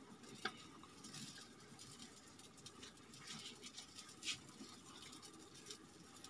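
A few faint, scattered taps and scrapes of a large kitchen knife slicing a red onion into rings on a wooden chopping board.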